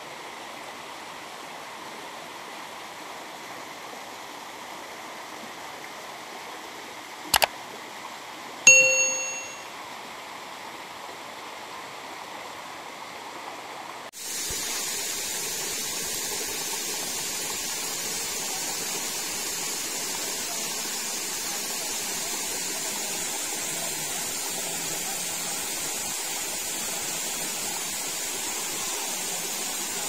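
Steady rush of water from a jungle stream and waterfall; about fourteen seconds in it cuts to a louder, brighter rush. Some eight to nine seconds in there is a click, then a single bright ringing ding that fades over about a second.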